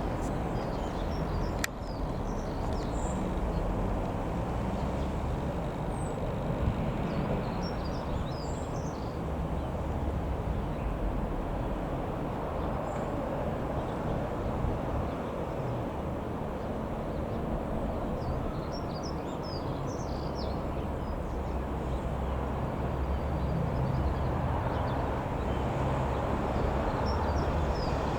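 Steady low rumble of outdoor background noise, with small birds chirping in short bursts several times and a single sharp click about two seconds in.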